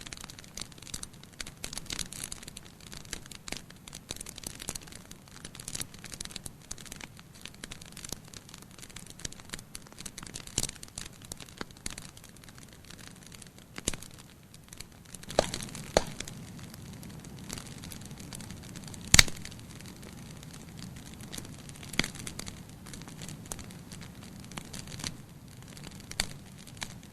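Wood campfire crackling, with irregular snaps and pops and one sharp loud pop about two-thirds of the way through. A low steady rush joins in about halfway.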